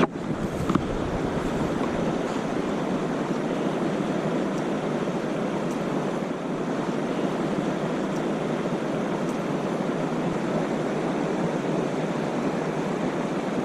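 Steady rush of flowing river water, an even noise with no rhythm, with two brief knocks in the first second.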